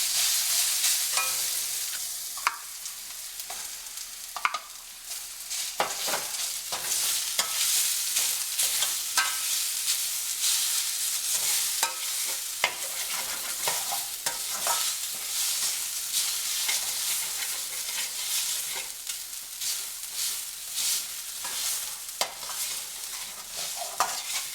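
Coarsely ground soaked toor dal sizzling as it is sautéed in hot oil with a mustard-seed and dried-chilli tempering. It is stirred, with the spoon scraping and tapping the pan at irregular moments.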